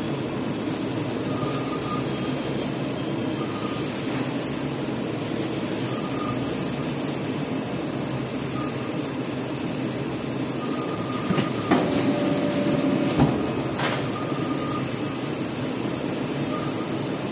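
Single-pass UV inkjet printer running as it feeds cardboard along its roller conveyor: a steady mechanical hum with a short high tone recurring every second or two. A cluster of sharp clicks and knocks comes about twelve to fourteen seconds in.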